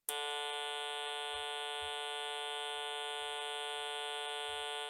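555 timer astable tone-generator circuit, amplified by an LM386, sounding a steady buzzy electronic tone at one fixed pitch. It starts abruptly and drops in loudness near the end.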